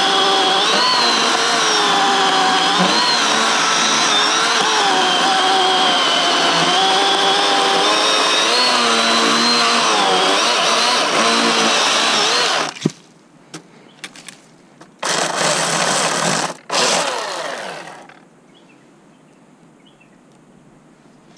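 Milwaukee M18 Fuel cordless brushless chainsaw cutting through a log, its motor pitch dipping and recovering under load for about thirteen seconds before it stops suddenly as the cut finishes. A few short squeezes of the trigger follow, the last one winding down.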